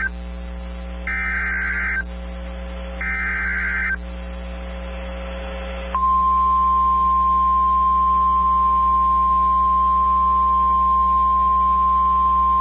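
NOAA Weather Radio emergency alert: the EAS SAME digital header, screeching two-tone data bursts about a second long, the tail of one and then two more. About six seconds in, the steady single-pitch Weather Radio warning alarm tone starts and holds; it is the signal that sets off alert receivers for a warning, here a Severe Thunderstorm Warning.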